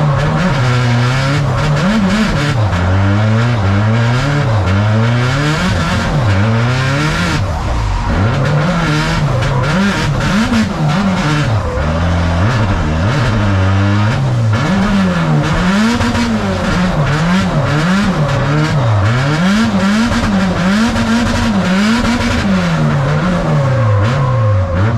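Nissan 180SX drift car's engine revving up and down over and over as the throttle is worked on and off through a drift run, with a steady hiss underneath.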